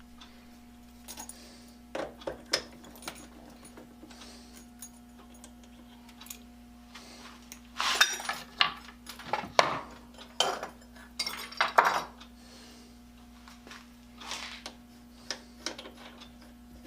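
Small metal tools being handled on a workbench: scattered clinks and clicks, with a busier stretch of clatter from about eight to twelve seconds in, over a faint steady hum.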